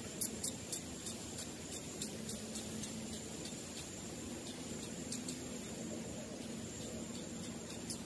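Racket-tailed treepie nestling giving fast, high, squeaky begging cheeps that thin out about a second in, then only a few scattered cheeps, over a steady high buzz.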